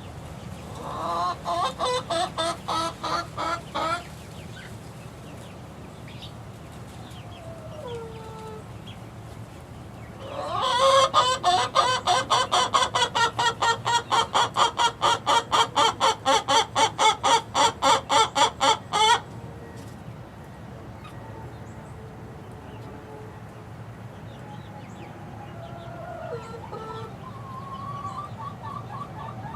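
Young chickens calling in rapid, evenly repeated notes, about five or six a second: a short run about a second in, then a longer, louder run of about eight seconds around the middle, with faint chirps in between.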